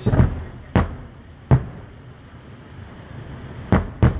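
Aerial firework shells bursting in a series of five booms: three spaced about 0.7 s apart in the first second and a half, then two in quick succession near the end.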